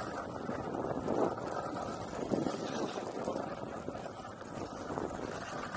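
Longboard wheels rolling on an asphalt path: a steady rumble with a few faint clacks.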